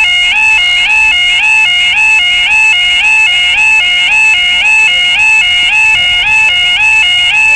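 Level crossing audible warning: an electronic two-tone yodel alarm, two high notes alternating rapidly, each with a short upward slide, repeating steadily at a constant loud level as the crossing is closed to road traffic.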